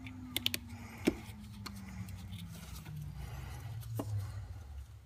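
A few light clicks and knocks of metal parts and hand tools as the new lift pump's mounting bolts are fitted. Three come close together about half a second in, a sharper one about a second in, and another near four seconds, over a faint steady low hum.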